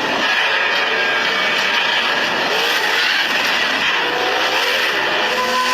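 A buggy's engine racing at speed, its pitch rising and falling, over dense rushing noise.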